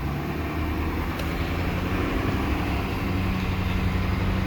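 Box truck engine running steadily under way, with road noise, its hum building slightly.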